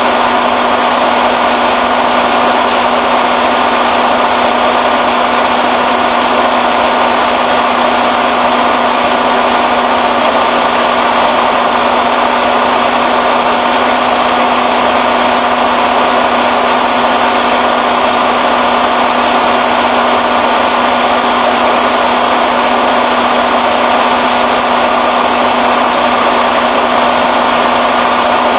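Steady, unchanging machine drone with a rushing hiss and a fixed hum at a diesel fuel island, typical of a truck idling and a fuel pump running while the tank fills.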